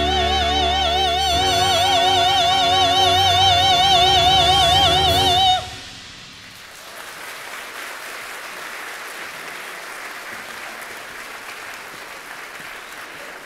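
A soprano singing bel canto holds the song's final high note with wide vibrato over a sustained closing chord from a Chinese traditional orchestra. Voice and orchestra cut off together about five and a half seconds in, and the audience then applauds steadily.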